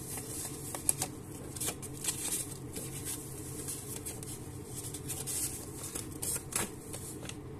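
Hands handling a paper packet of new piston rings: crinkling with scattered light clicks and taps, over a steady low hum.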